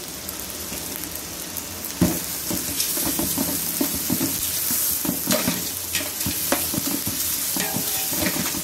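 Onions and tomatoes with mint, coriander and green chillies sizzling in hot ghee in a large pot, with a steady hiss. About two seconds in, a metal spatula starts stirring, scraping the pot in repeated strokes.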